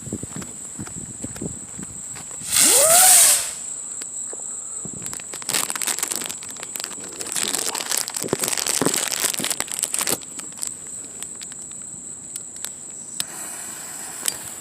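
King Bird ZING flying spinner fireworks going off. About two and a half seconds in, one gives a loud whizzing burst lasting about a second, its pitch rising and then falling. From about five to ten seconds a long stretch of crackling, fizzing sparks follows, and a fainter hiss comes near the end.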